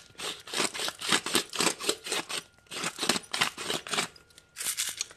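Hand-twisted pepper mill grinding black peppercorns: quick dry crunching rasps, about four a second, in three runs with short pauses, the last ending shortly before the end.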